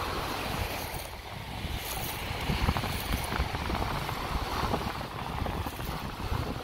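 Wind buffeting the microphone in uneven gusts over the hiss and wash of small waves breaking on a sandy beach.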